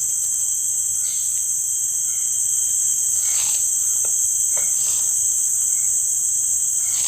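Steady, high-pitched chorus of insects, a continuous shrill drone, with a few faint brief swishes.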